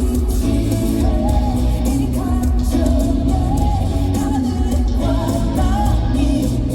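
K-pop dance track played loud through an arena's sound system, with a male singer's voice over a heavy, steady bass beat.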